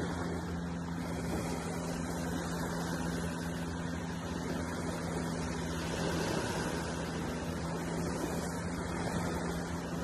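A motor running steadily: a constant low hum over an even hiss, unchanging throughout.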